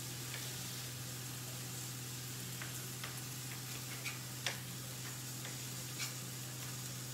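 Chef's knife tapping on a plastic chopping board while dicing tomato: a handful of sparse, irregular taps, the clearest about four and a half seconds in, over a steady low hum and hiss.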